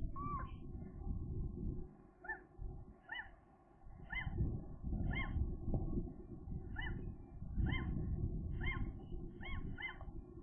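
Gull giving a series of short, arched calls, about one a second, starting about two seconds in, over a steady low rumble.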